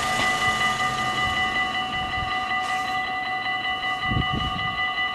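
Dutch level-crossing warning bells ringing in a rapid, steady clatter as the half-barriers lower: the crossing's signal that a train is approaching. A brief low thump about four seconds in.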